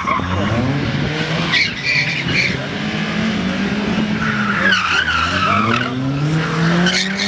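Small hatchback's engine, a Peugeot 206, revving up and down repeatedly as it is driven hard around a cone course. The tyres squeal under hard cornering about a second and a half in, again around five seconds, and near the end.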